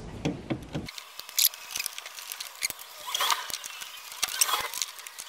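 Irregular small clicks, scrapes and short hissy rustles as a plastic quick-release fuel line connector is worked loose by hand.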